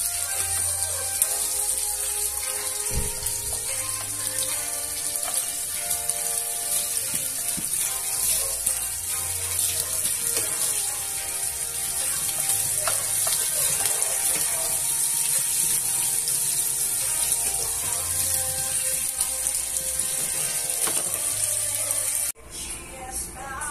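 Small whole fish sizzling in hot oil in a frying pan, with metal tongs clicking against the pan and fish as they are turned. Background music with a steady beat plays throughout. The sizzling cuts off suddenly near the end.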